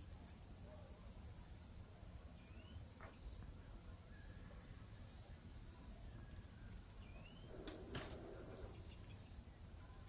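Faint, steady, high-pitched trilling of insects in the background, with three short rising chirps and a brief rustle about eight seconds in.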